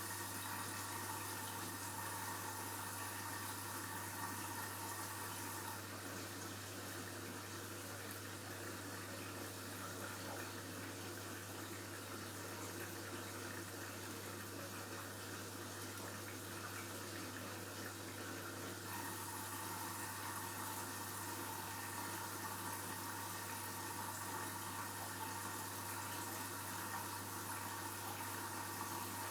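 Washing machine filling with water: a steady rush of water running in, with a constant low hum.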